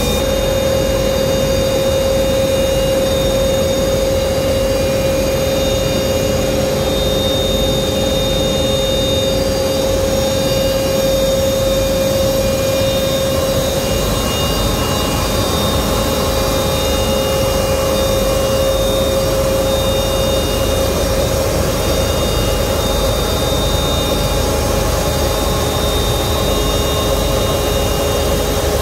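Olive oil mill processing machinery running continuously, a steady loud drone with a constant whine on top.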